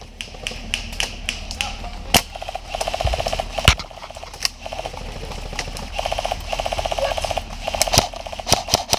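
Airsoft electric guns firing: several short bursts of rapid full-auto fire, mixed with scattered single sharp shots.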